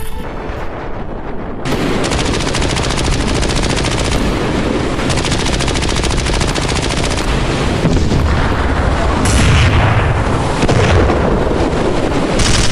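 Rapid machine-gun fire that starts about a second and a half in and keeps going, with several heavier booms in the second half: battle sound effects for a radio-controlled model war scene.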